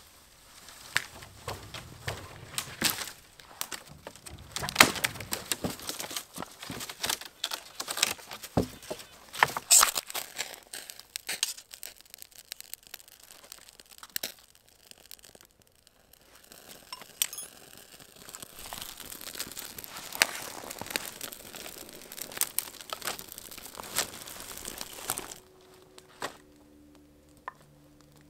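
Dry birch bark being torn and crinkled as fire tinder, with ferro-rod strikes throwing sparks into it: a dense run of sharp crackles and rustles. It stops about 25 seconds in, giving way to a few steady low tones.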